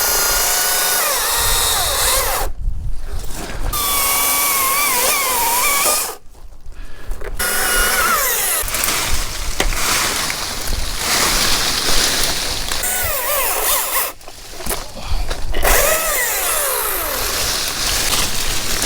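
Chainsaw running and cutting wood, its pitch sliding down as it loads up in the cut, with three short breaks.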